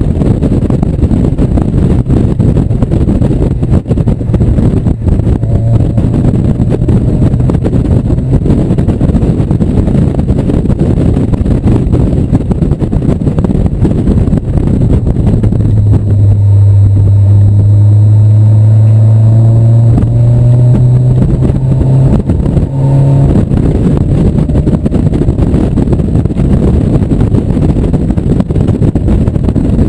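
1997 Mazda Miata's 1.8-litre four-cylinder engine pulling hard on track, heard from inside the open-top cabin under heavy wind rush. Partway through, the engine note climbs steadily for several seconds, then breaks off.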